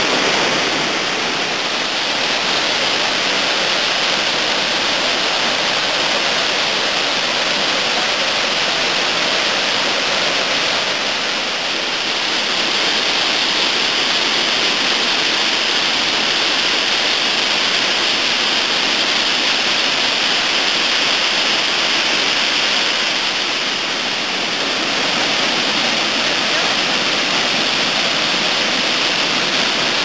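Mountain waterfall swollen with peak snowmelt runoff, whitewater pouring down rock in a steady, unbroken rush.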